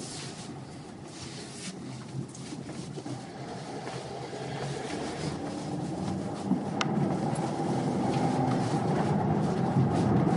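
Car road and engine noise heard from inside the cabin, a steady rumble that grows louder through the second half, with a single sharp click about two-thirds of the way in.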